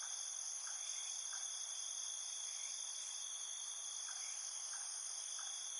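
Steady, high-pitched insect chorus trilling without a break, with a few faint short chirps.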